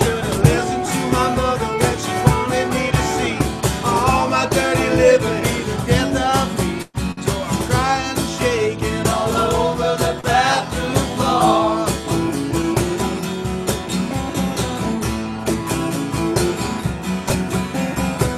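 Acoustic guitar strummed in a steady rhythm while two men sing, with a brief dropout in the sound about seven seconds in.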